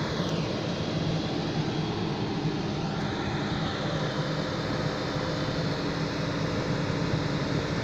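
Excavator's diesel engine running steadily, with a faint high whine that falls in pitch just after the start.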